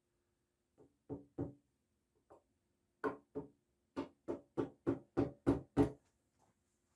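A series of sharp knocks: a few scattered ones, then an even run of about seven at roughly three a second, the last ones the loudest. A faint steady hum lies underneath.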